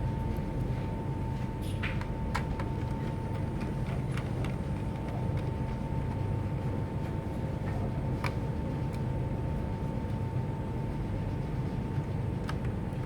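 A steady low rumble with a faint steady high tone, broken by a few small sharp clicks, the clearest about two seconds and about eight seconds in.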